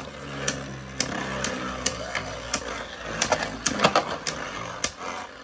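Two Beyblade Burst spinning tops whirring in a clear plastic Beyblade stadium, with irregular sharp plastic clacks, about two a second, as they hit each other and the stadium wall.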